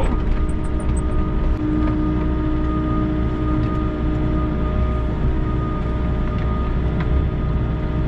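Volvo EC60E excavator's diesel engine running steadily, heard from inside the cab, with a steady hydraulic whine as the boom and bucket move; about two seconds in, one tone grows stronger for about three seconds.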